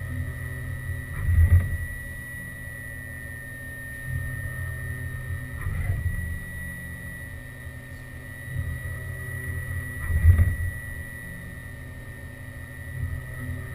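Haas VF2 CNC vertical mill running: a steady low machine hum under a constant high whine, swelling louder every four to five seconds.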